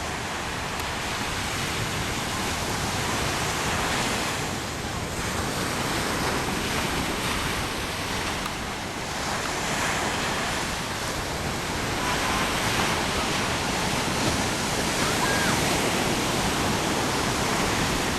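Ocean surf breaking and washing on the shore: a steady rush that slowly swells and eases.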